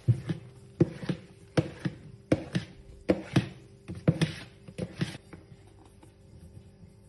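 Silicone spatula folding thick cake batter in a plastic mixing bowl, knocking against the bowl one or two times a second. The knocks stop about five seconds in.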